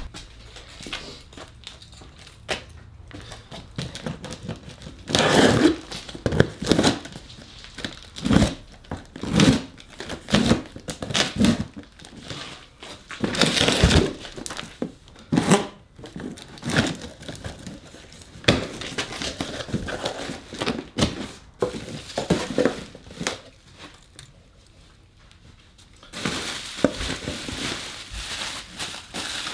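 A cardboard box being unboxed: irregular tearing, scraping and knocking of the box and its flaps, then plastic bubble wrap crinkling near the end as a wrapped part is pulled out.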